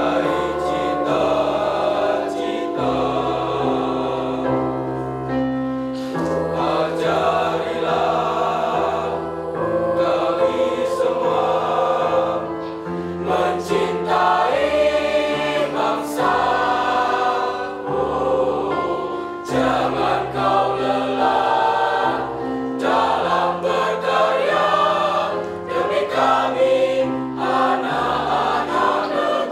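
Mixed high-school choir of young men and women singing in parts, with held chords over deep bass notes that change every couple of seconds.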